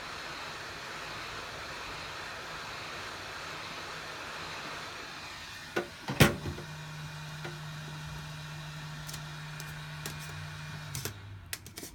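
Heat gun blowing a steady rush of hot air to soften the adhesive on a phone. A sharp click comes about six seconds in, a low hum joins after it, and the air noise stops near the end.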